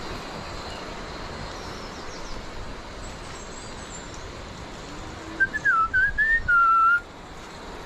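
A few short whistled notes, then one longer wavering note, loud and close, starting about five seconds in. Under it a steady hiss of running water.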